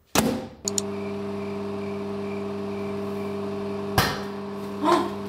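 Whirlpool built-in microwave oven running with a steady electrical hum while melting a bowl of butter. About four seconds in, one sharp pop as the butter bursts and spatters inside the oven.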